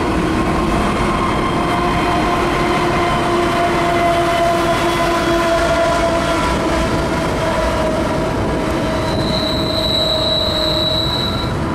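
BNSF double-stack container train rolling past: the cars rumble on the rails while the wheels squeal in several steady tones, with a high squeal near the end. Diesel locomotives at the tail end of the train go by about halfway through.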